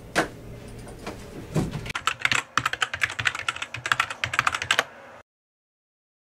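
Typing on a computer keyboard: a few scattered key clicks, then rapid clattering keystrokes, which cut off abruptly to silence about five seconds in.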